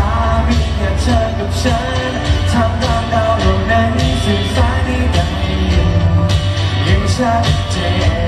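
A male singer sings a pop song live into a handheld microphone, amplified over an accompaniment with a steady beat and heavy bass.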